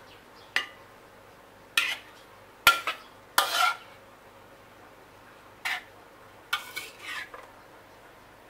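A metal spatula scraping and clinking against a ceramic plate while arranging stir-fried food on it, in about half a dozen short, separate strokes.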